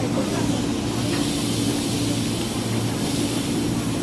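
KRL Commuterline electric commuter train running with a steady low hum and a rushing hiss that grows about a second in.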